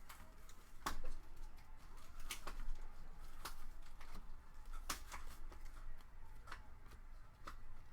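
2019-20 Panini Hoops basketball cards being handled and flipped through by hand: a dozen or so irregular small sharp clicks and snaps of card stock, with light rustling between them.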